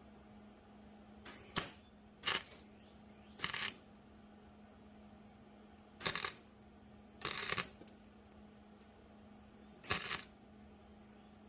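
Welding arc crackling in seven short tack-weld bursts, each under half a second, spot-welding a cracked, very thin steel door-handle bracket; a steady low hum runs underneath.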